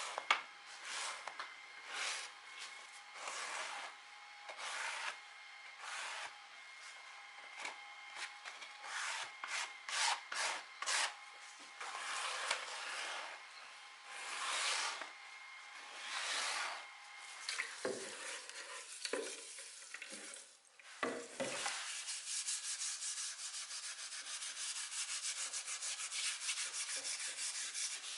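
Sandpaper rubbed over wood in back-and-forth strokes, about one a second. A few soft knocks follow, then the rubbing continues as a quicker, steadier run of short strokes.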